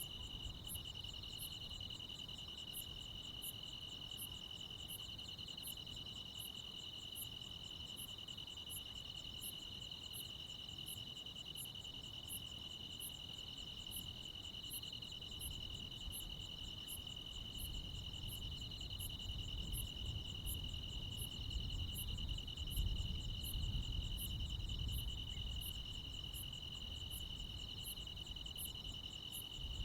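Night chorus of crickets and other insects: a steady, unbroken high trill with a higher, thin chirp repeating a little more than once a second over it. A low rumble underneath grows louder in the second half.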